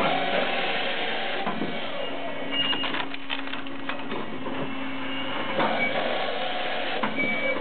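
Firewood processor (combined saw and log splitter) running with a steady mechanical hum, wood cracking and clattering as logs are split and the pieces tumble down the chute. The cracks come in a cluster about three seconds in and again near the end.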